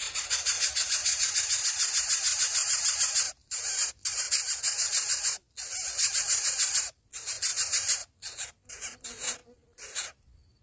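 Nestlings begging with harsh, rasping hiss-like calls, rapidly pulsed, in a long bout and then in shorter bursts broken by abrupt pauses.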